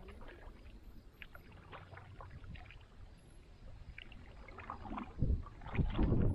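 Canoe paddling: a wooden paddle dipping and pulling through marsh water, with small splashes and drips, the splashing getting louder about five seconds in.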